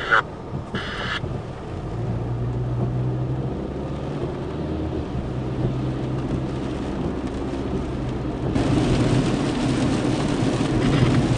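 Car driving through rain, heard from inside: a steady low engine and road hum under a hiss of rain, with two brief louder noises near the start. About three-quarters of the way through it changes to a louder, steady hiss of rain falling on a puddle.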